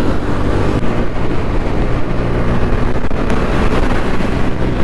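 Motorcycle engine running steadily while riding at speed, a continuous low hum under road noise.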